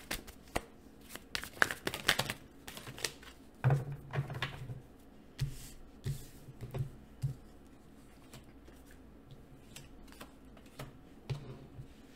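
Tarot cards being handled and laid down on a table: a run of quick flicks and taps, with soft thumps as cards are set down, quieter for a few seconds before more placing near the end.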